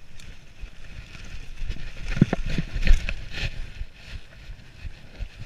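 Mountain bike riding over a dirt trail covered in dry leaves: tyres rolling through the leaves, with knocks and rattles from the bike over bumps. The knocks are loudest about two to three and a half seconds in, as the bike drops through a dip.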